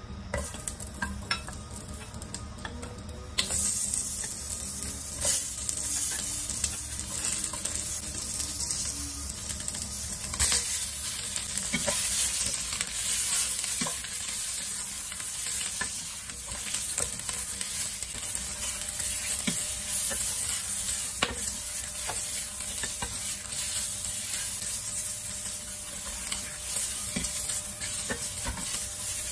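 Spring onion, garlic, ginger and shiitake mushrooms sizzling in hot oil in a stainless steel pot, stirred with a spatula that scrapes and taps against the pot. The sizzle gets much louder about three seconds in and then keeps going steadily.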